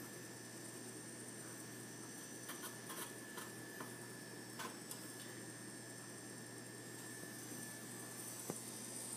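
Steady low electrical hum with a faint high whine from an electric cooktop heating oil in a frying pan, with a few faint ticks a few seconds in.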